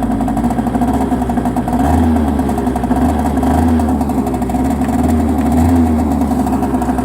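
2000 Hyosung Sense SD 50 scooter engine idling steadily while still cold, the idle swelling slightly a few times.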